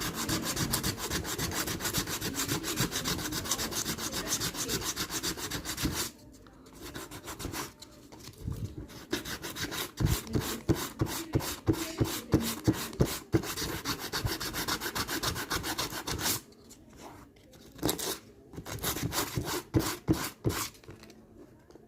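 Sandpaper scrubbing a rubber inner tube around a cut, roughening it for a patch. Quick back-and-forth strokes for about six seconds, then slower, separate strokes with pauses, and a few last strokes near the end.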